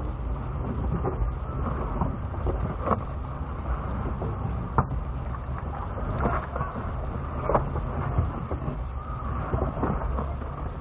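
Lexus GX470's V8 engine running at a low, steady crawl, heard from inside the cabin, with a few sharp knocks scattered through as the truck works over rock.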